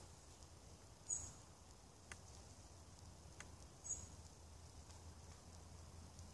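Near-quiet woodland with two brief high chirps, about a second in and just before four seconds. Between them come two faint light clicks as an arrow is laid onto the drawn yew bow of the trap.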